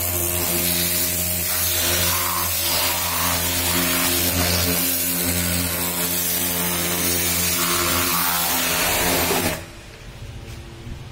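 Pressure washer running: a steady motor hum under the hiss of the water jet spraying a car's lower body and wet ground. It stops abruptly about nine and a half seconds in.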